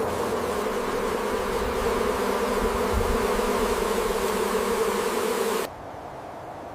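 A swarm of bees buzzing steadily and densely. The buzz cuts off suddenly near the end, leaving a quieter background hiss.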